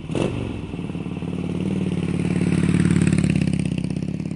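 Motorcycle engine running with a fast pulsing beat. It grows louder to a peak about three seconds in, then eases back.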